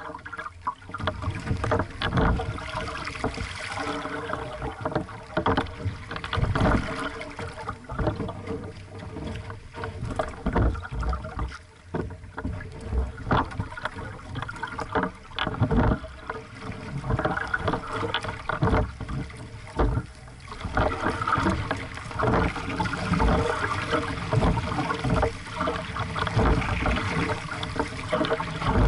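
Water slapping and splashing against the hull of a small aqu@muse sailing dinghy under way, with irregular knocks and thuds.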